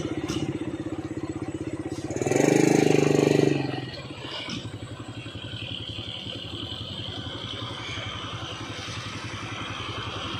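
A Mitsubishi Fuso truck's diesel engine is running under heavy load with a sugarcane cargo, throbbing with a steady, rapid pulse as the truck crawls forward. About two seconds in, the sound swells much louder for just over a second, then settles back to a steadier, quieter run.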